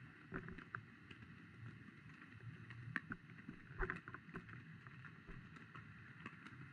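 Faint low water rumble with scattered light clicks and taps. The loudest is a cluster about four seconds in.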